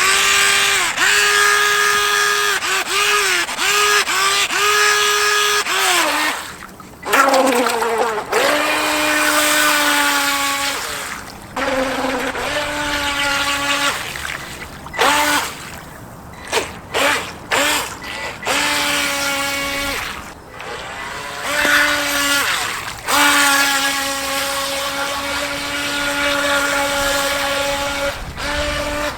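Electric RC speedboat's motor whining under throttle, held steady for several seconds at a time, with the pitch dipping as the throttle is eased and cutting out between runs. Several short throttle blips come in the middle.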